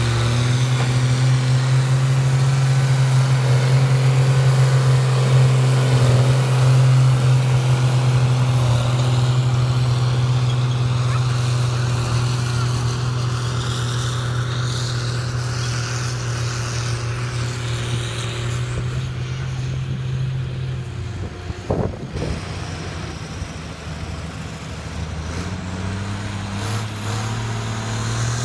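Tractor engine running hard and steady while pulling on a tractor-pull track, its note slowly fading. About 22 seconds in there is a single sharp knock and the engine note eases off, then it picks up again near the end.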